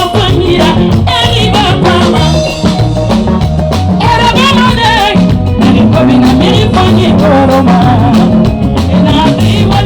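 Upbeat dance music with singing over a steady bass line and drums.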